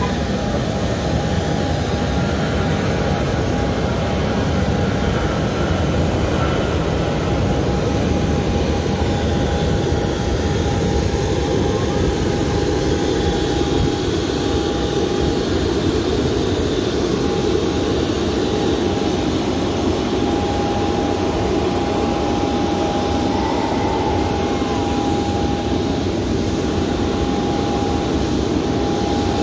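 Jet aircraft turbine running steadily: a constant rumble with a thin, steady whine above it.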